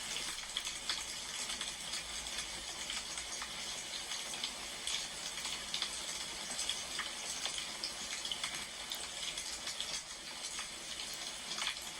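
Wood fire crackling: a steady hiss with many small, irregular pops and snaps.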